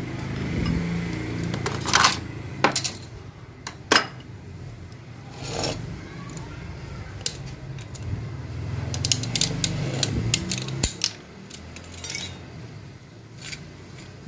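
Clutch plates from the clutch pack of a Honda Civic automatic transmission clinking against each other and against metal as they are handled. The sharp metallic clinks come in two clusters, a few seconds apart, with single clinks between.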